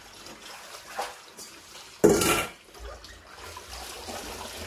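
Water running and splashing in a stainless-steel kitchen sink as hands wash leafy greens in a basin. About two seconds in, one loud metallic clatter as a steel colander is set into the sink.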